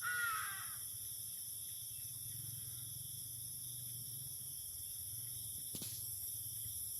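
A short falling call at the very start, crow-like, over a steady high-pitched chorus of insects that runs throughout. A single click sounds near the six-second mark.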